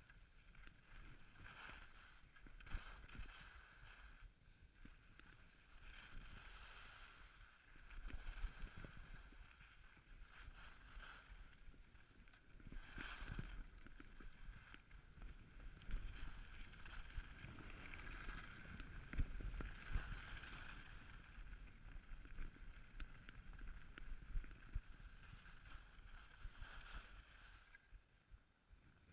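Skis sliding and scraping over groomed piste snow through a run of turns, rising and falling in loudness with each turn. The sound dies away near the end as the skier stops.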